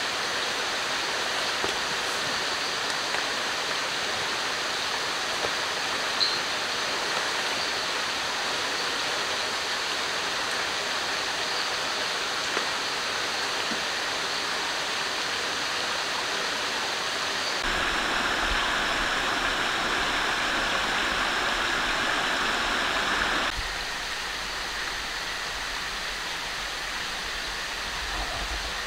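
Steady rushing of river water, a constant even hiss that changes character abruptly twice as the recording is cut.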